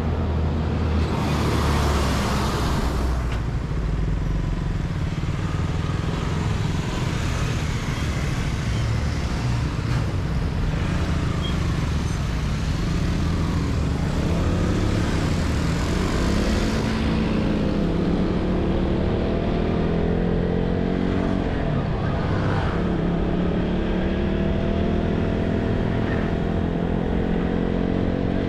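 Motorcycle engine running while riding along streets, its pitch rising and falling with the throttle. A brief louder rush of noise comes near the start.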